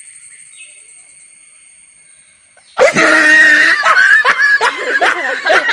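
After a quiet start, a loud sneeze bursts out about three seconds in, set off by black pepper powder at the nose, and runs straight into laughter.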